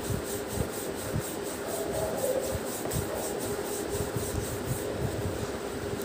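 Wooden rolling pin rolling back and forth over a stack of dough rounds on a wooden board: a steady rubbing with soft, irregular knocks as the pin strokes.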